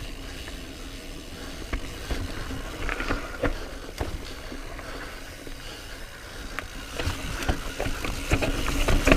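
Mountain bike riding over a rough trail of roots and rocks: tyre rumble with scattered knocks and rattles, louder and busier over the last couple of seconds.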